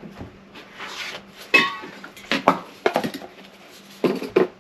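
Plastic spreader scraping Bondo body filler into the dents of a metal motorcycle gas tank: a run of short, irregular scrapes and clicks.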